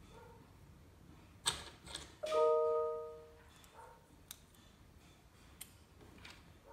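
LEGO Technic plastic parts clicking and knocking as they are handled and fitted together. About two seconds in, after two sharper clicks, comes a single bell-like ding that fades over about a second; the scattered light ticks continue after it.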